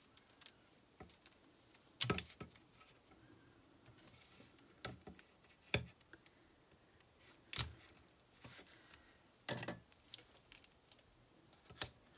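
Cardstock pieces and a roll of thin tape being handled: a handful of separate short rustles and taps, the loudest about two seconds in.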